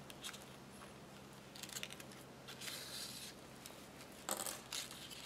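Faint rustling of ribbon and sewing thread as thread is wound tightly around the centre of a hair bow, with a longer soft hiss of thread drawn taut a little past halfway and a brief rustle near the end.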